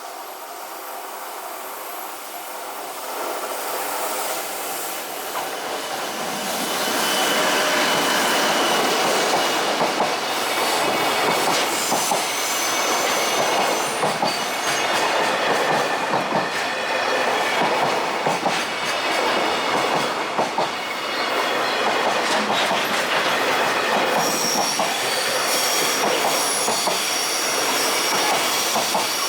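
Freight train of an EF66 electric locomotive and Koki container wagons passing close by. It builds up over the first six or seven seconds, then a long run of wagons rattles past, wheels clicking over rail joints, with a steady high squeal from the wheels.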